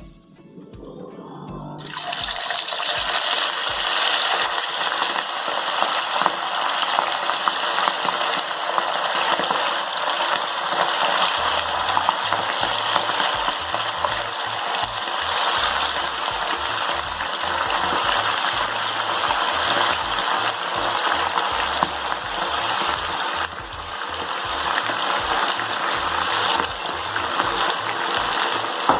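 Marinated prawns coated in a thick spiced rice-flour and cornflour batter deep-frying in hot oil in a kadai: a loud, steady sizzle that starts suddenly about two seconds in as they go into the oil.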